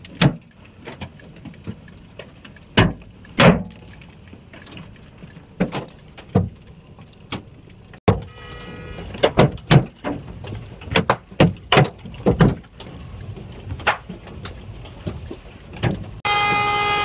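Hailstones knocking on a car's roof and glass, heard from inside: scattered sharp knocks, a few every second. About 16 seconds in, a car horn starts sounding, steady and loud.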